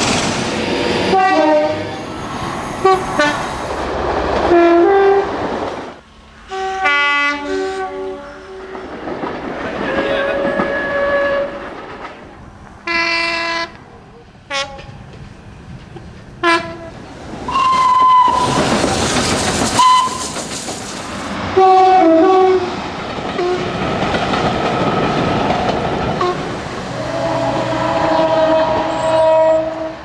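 A series of British diesel train horns, several trains one after another, each sounding short blasts that step between two tones, over the rumble and wheel clatter of passing trains.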